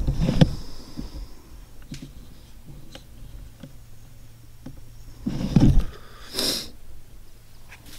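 Rustling and handling noise from a camera held close, with a few faint clicks, and a short sniff through the nose about six and a half seconds in.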